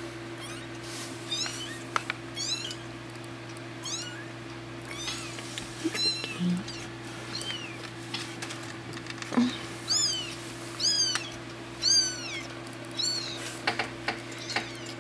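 Two-week-old kittens mewing: a long run of short, high, thin mews one after another, coming faster and louder in the second half. A steady low hum runs underneath.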